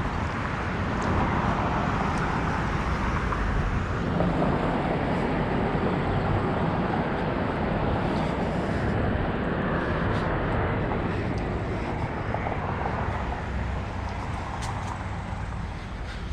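Steady road traffic noise, a continuous wash of passing cars, with a few faint clicks over it.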